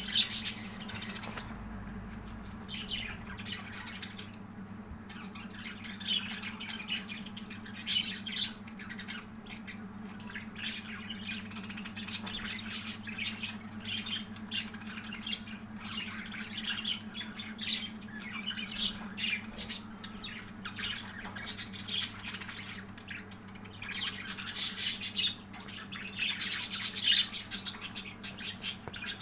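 Pet budgerigars chirping and squawking in a steady stream of short, high calls, growing louder and busier near the end.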